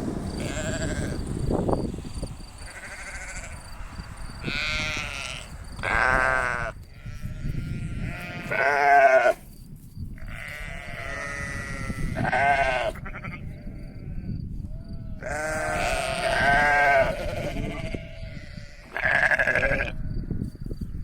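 A flock of livestock bleating close by, about ten wavering calls one after another, the loudest about nine seconds in.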